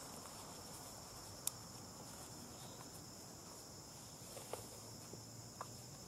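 Steady, high-pitched chorus of insects, with one sharp click about a second and a half in and a few softer clicks near the end as climbing gear is handled.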